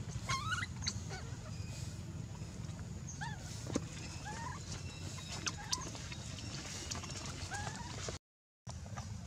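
Baby macaque crying with short, squeaky calls that bend up and down in pitch, a cluster at the start and then one every second or so, over a steady low rumble. The sound drops out briefly near the end.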